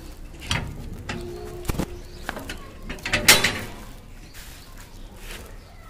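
Plastic carry bag rustling and crinkling as it is handled and opened, in irregular crackles with one louder crinkle about three seconds in.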